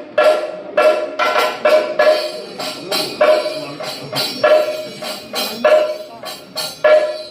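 Kathakali percussion accompaniment, metal cymbals and drums struck about twice a second in an uneven rhythm, each stroke leaving a bright ringing tone.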